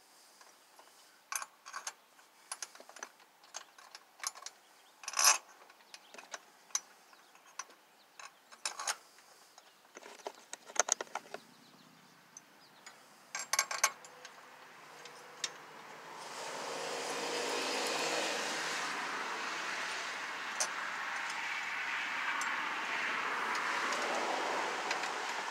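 Light metallic clinks and clicks of steel head bolts and a socket wrench being handled as the bolts are threaded into a small engine's cylinder head. About halfway through, a steady rushing noise comes up and stays louder than the clinks.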